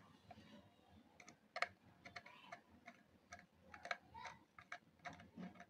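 Faint, irregular clicks and ticks of a Phillips screwdriver turning a screw into a hair clipper's plastic housing, with one sharper click about a second and a half in.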